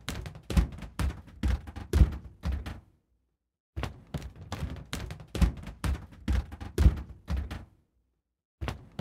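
Footsteps at a walking pace, about two steps a second, each step a dull thud. The steps stop about three seconds in, start again after a second of silence, and stop again about a second before the end.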